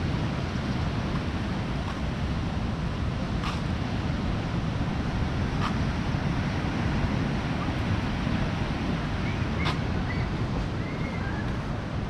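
Steady ocean surf washing on the beach, with wind on the microphone. A few faint sharp clicks and, near the end, some faint short chirps.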